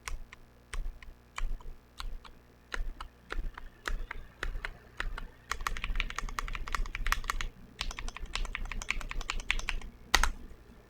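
Glorious GMMK Pro mechanical keyboard with TTC Wild switches and JTK Suited Assassin keycaps being typed on. Scattered single keystrokes give way about halfway through to a fast, dense run of typing, and one louder key stroke comes near the end.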